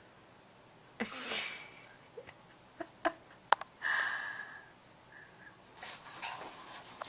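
Boston terrier giving a short high whine about four seconds in, among breathy snuffling noises and a few sharp clicks: the whine of a dog that wants its ball but is afraid to take it from the cat.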